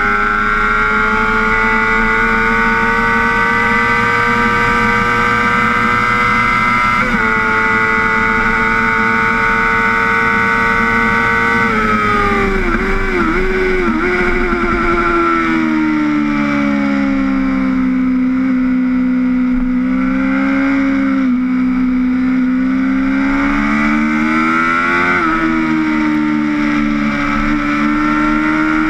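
Honda sport bike's engine heard from the rider's seat under hard riding: revs climbing steadily, a gear change about seven seconds in, then revs falling with a few quick wobbles as it is shifted down, running low for several seconds and climbing again near the end. Wind and rain spray rush under the engine throughout.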